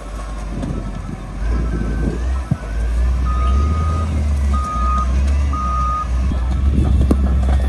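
Wheel loader's diesel engine running under load, with its reversing alarm sounding three long beeps in the middle.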